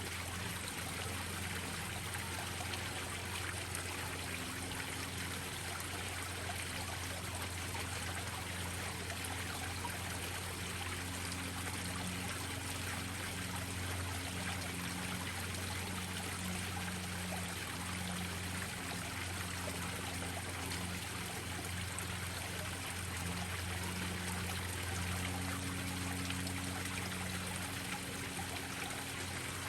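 Small garden-pond waterfall splashing and trickling steadily into a koi pond, with a faint low hum underneath.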